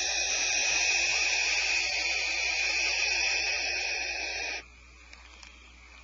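Young barn owl hissing: one long, steady hiss that cuts off suddenly about three quarters of the way through.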